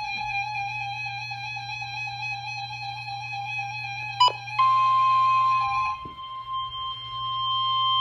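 Weather radio's 1050 Hz warning alarm tone, a loud, perfectly steady single tone, starting about four and a half seconds in after a short click, marking the start of a new severe thunderstorm warning broadcast. Before it, and briefly under it, a wavering, musical-sounding tone plays.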